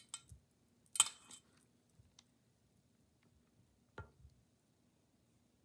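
A few light knocks and clinks of a plastic container of crumbled cheese against a stainless steel mixing bowl as the cheese is tipped in. The sharpest knock comes about a second in, and a softer one about four seconds in.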